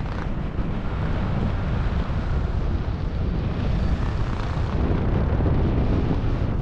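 Airflow buffeting a helmet-mounted camera's microphone during parachute canopy flight: a steady low rumble of wind noise.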